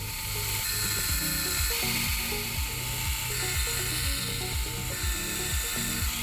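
Small milling-machine spindle running, with a fine cutter plunging into a brass ratchet blank: a steady high-pitched whine and hiss of cutting.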